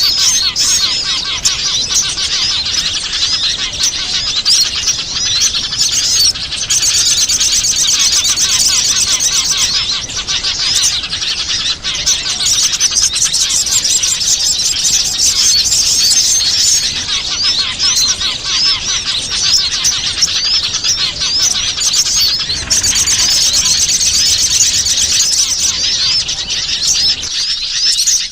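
Dense, continuous chorus of many small wild songbirds: rapid high chirps and twitters overlapping without pause, a bird-lure recording meant to draw small birds in.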